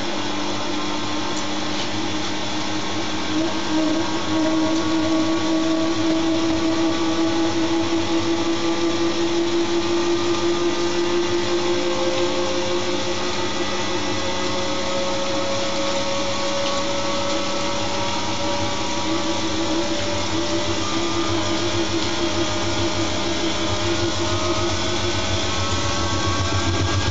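Siemens Siwamat iQ washing machine running with its drum spinning: a steady motor whine whose tones rise slowly and smoothly, as the drum gradually picks up speed.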